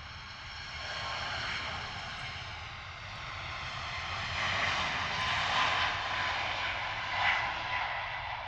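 Boeing 737 MAX 8 departing, its CFM LEAP-1B turbofans at takeoff power: a steady jet rush with a faint whine that swells from about a second in and is loudest in the second half.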